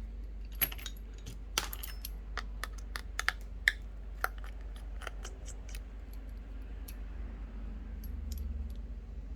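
A precision screwdriver and tiny screws clicking and ticking against the metal inside an iPhone 12 as the screws by the charging port are taken out, in irregular sharp ticks over a steady low hum.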